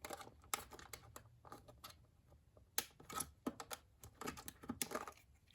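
Irregular plastic clicks and taps as the wall-mount bracket is worked off the plastic base of an AT&T E2801 cordless phone, with a couple of sharper clicks about three and five seconds in.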